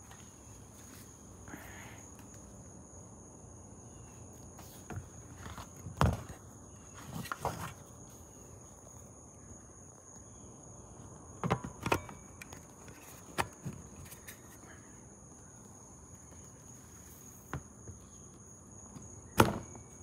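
Scattered clicks and knocks as a Tesla-to-J1772 charging adapter and a Tesla charging plug are handled on a plastic bin lid. The loudest knock comes near the end, as the Tesla plug is pushed into the adapter. A steady high-pitched tone runs underneath.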